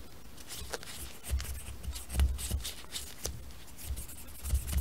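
Cotton swab scrubbing in an AR-15's gas tube: scratchy rubbing with small clicks of the swab and metal parts being handled, and a few dull low bumps.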